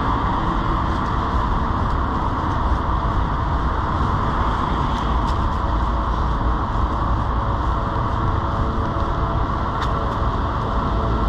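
Steady rolling noise of a bicycle ride on wet pavement: tyres hissing on the wet surface and wind rumbling on the microphone, with a few faint clicks.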